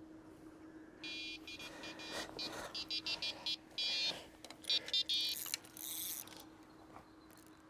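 Electronic carp bite alarm sounding a fast, stuttering run of beeps as a fish takes line, signalling a bite, followed by a brief hiss near the end as the rod is picked up.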